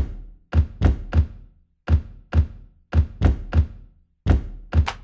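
A fist knocking on a wall pillar in a rhythmic beat: about a dozen sharp knocks, each with a deep thud, falling in groups of two and three.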